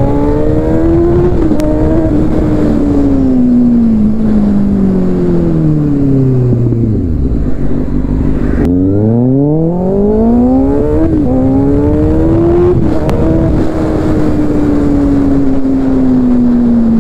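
Kawasaki Ninja ZX-6R's inline-four engine on a ride: revving up with quick upshifts, then its pitch falling steadily for several seconds as it slows. After a sudden break about halfway it climbs again through several upshifts and settles into a slowly falling pitch.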